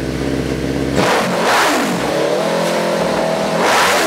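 Garden pulling tractor's engine running through a newly built exhaust made to take the bark out: idling steadily, then revved up sharply about a second in and held high, with a second surge near the end as it starts to drop back.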